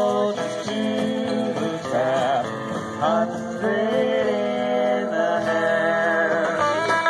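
Live music with guitar accompaniment under a long-held, sliding melody line.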